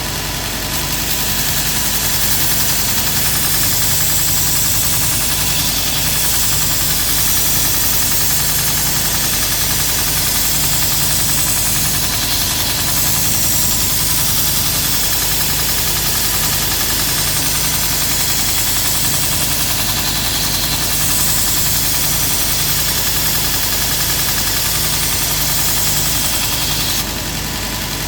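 Grizzly 2x42 belt grinder running with a steady motor hum while a lopper blade is ground on the slack part of the belt, a loud grinding hiss from about a second in until just before the end, when the blade comes off the belt.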